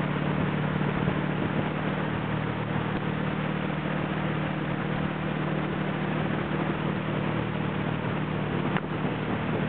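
Towboat's engine running steadily at towing speed, a constant low hum under a continuous rush of wind and water.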